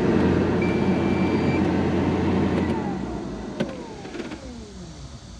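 A motor runs loudly with a steady low hum, with a short high beep about a second in; after about three seconds it winds down, its pitch falling over the next two seconds.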